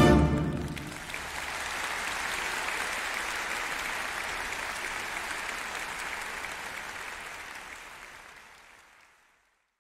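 The last chord of a wind band rings out and dies away in the first second, then an audience applauds steadily, fading away near the end.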